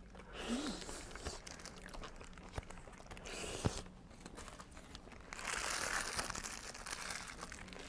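Paper burger wrapping crinkling and rustling in three short bouts, with a few light clicks, the sharpest a little under four seconds in.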